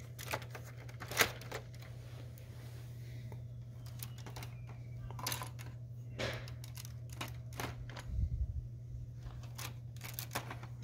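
Plastic Lego pieces clicking and tapping as a section of a brick-built model ship is set back in place and handled: scattered sharp clicks, the loudest about a second in, with a soft thump near the end, over a steady low hum.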